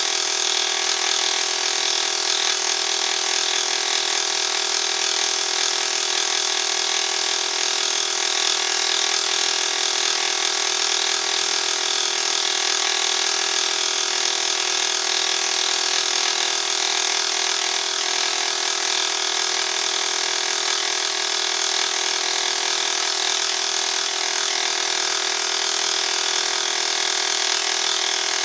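Milling machine running steadily with a dovetail cutter cutting a cast iron cross slide, giving a constant whine of several tones over a light cutting hiss as the table feeds the work along.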